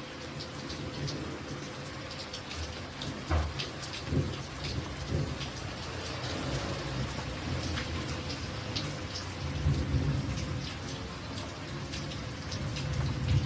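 Steady rain falling, with many separate drops ticking on a surface. Under it runs a low rumble that swells and fades several times, loudest about 3 and 4 seconds in and again near 10 seconds.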